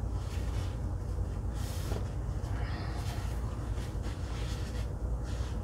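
Small electric air blower running steadily with a low hum, used to push wet acrylic pour paint across a canvas; a brief rush of air hiss comes about two seconds in.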